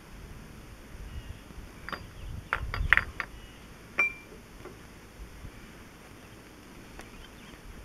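Metal timing gears of a David Brown 1200 tractor engine clinking as the idler gear is slid onto its shaft and meshed with the neighbouring gears. A cluster of clicks comes about two to three seconds in, and one sharp clink with a short ring follows at about four seconds.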